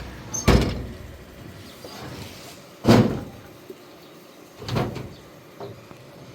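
Three loud thumps about two seconds apart, each with a short rumbling tail, then a smaller knock.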